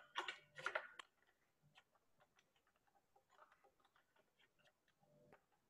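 Near silence, with a few soft clicks in the first second and faint scattered ticks after.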